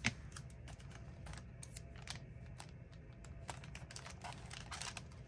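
Irregular light clicks and short rustles of paper and tape being handled on a desk while decorating a journal page, with a sharper click at the start and a brief burst of rustling near the end.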